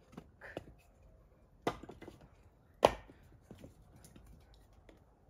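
Split firewood logs tossed onto a woodpile. They land with two loud wooden knocks about a second apart, among a few lighter clatters of wood on wood.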